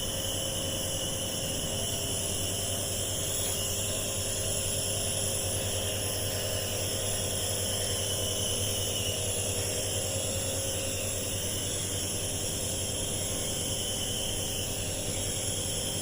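Compressor nebuliser running steadily: an even motor hum with a hiss of air and mist.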